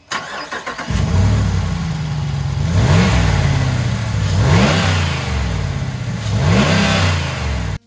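Ram 1500's Hemi V8 starting up: a short crank, catching about a second in, then idling and revved three times, the pitch rising and falling with each blip of the throttle.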